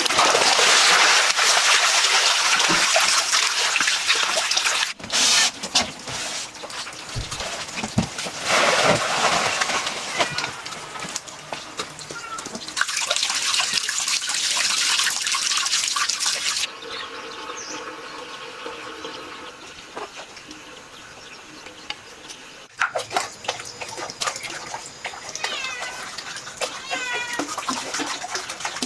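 Loud rushing, splashing water that cuts off abruptly partway through, followed later by a few short rising-and-falling animal calls.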